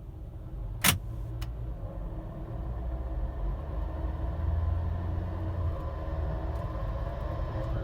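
Drivetrain of a 2014 Honda CR-V turning on a lift, with a steady low rumble and grinding that the mechanic believes comes from a worn drive shaft center carrier bearing. There is a sharp click about a second in, and the sound grows louder, with a faint rising whine near the end.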